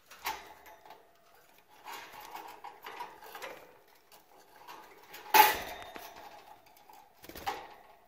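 Wire bird cage rattling and clanking as a hand works a budgie in through the cage opening, with a few sharp metal knocks and the loudest clank about five seconds in.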